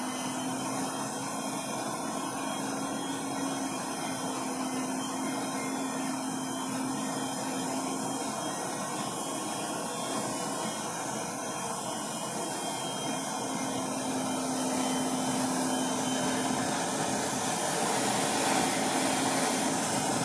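Handheld gas torch burning steadily with a hissing flame as it heats a steel barrel for tinning with solder, getting a little louder over the last few seconds.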